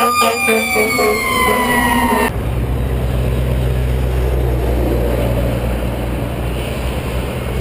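Fire engine siren wailing and slowly falling in pitch, with short horn blasts near the start, cut off abruptly about two seconds in. After that, a semi tractor's diesel engine rumbles steadily as it drives past.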